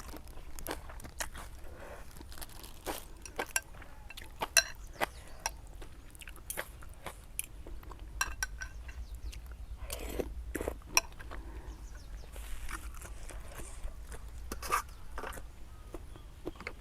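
Close-up eating sounds from a bowl of noodle soup: irregular clinks of chopsticks and spoon against the bowl, mixed with chewing and crunching, over a steady low hum.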